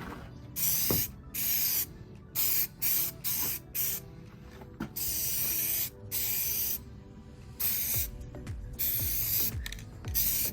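Rust-Oleum aerosol spray paint can spraying a coat in a series of short hissing bursts, with one longer spray of about two seconds midway.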